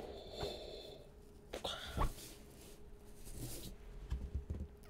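Breathy puffs of air blown into a balloon, with a sharp knock about two seconds in, then soft handling noises from gloved hands holding the inflated balloon.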